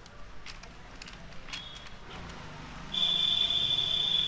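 A few faint clicks, then about three seconds in a steady high-pitched tone sets in and holds, much louder than the clicks.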